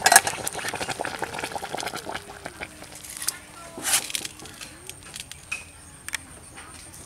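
Aluminium pot of rice boiling with a dense, crackly bubbling, then metal clinks and a loud knock about four seconds in as the pot is lifted off the charcoal stove and set on a wire grill.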